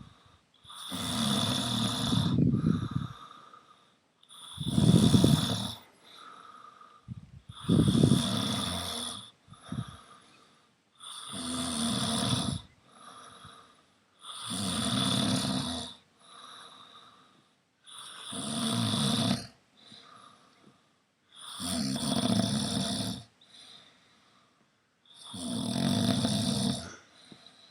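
A sleeping person snoring in deep, regular breaths: eight long snores about every three and a half seconds, each followed by a softer breath out.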